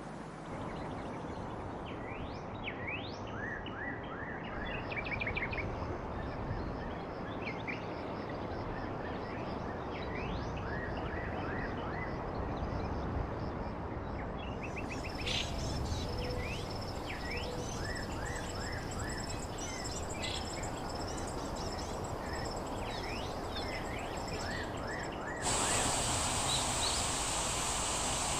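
Songbirds chirping in quick short repeated notes over a steady rushing background. From about halfway a thin high steady buzz joins in, and near the end a louder high insect-like hiss sets in abruptly.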